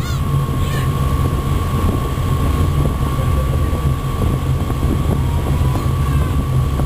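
Steady low drone of a sightseeing boat's engine, with a constant whine above it. A couple of faint seagull calls come in near the start.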